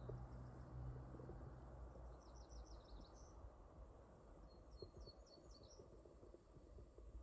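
Faint bird calls: a quick run of short high chirps about two seconds in and another about five seconds in, over quiet low background noise.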